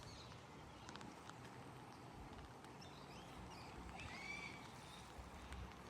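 Faint bird calls: a few short chirps and one clearer arched call about four seconds in, over faint background noise.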